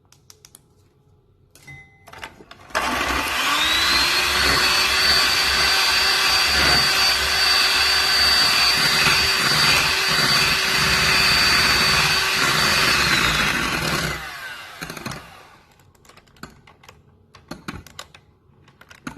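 Electric mixer beating egg whites into meringue: the motor starts about three seconds in, its whine rising quickly to speed, runs steadily for about ten seconds, then winds down and stops. Light clicks of handling come before and after.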